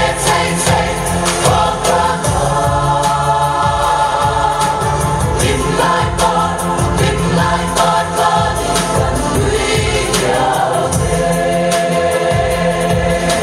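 A group of voices singing a Mizo Chheih Lam dance song together over a regular beat.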